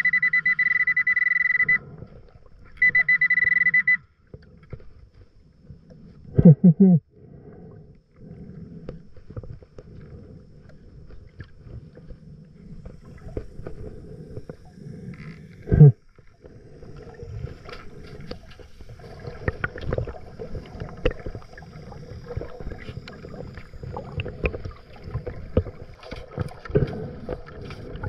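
Underwater metal detector (Pulse Dive) giving two steady high-pitched alert tones, the first about two seconds long and the second about a second, signalling a metal target in the sand. Then underwater rustling and knocks while the sand is dug, with two brief louder bursts.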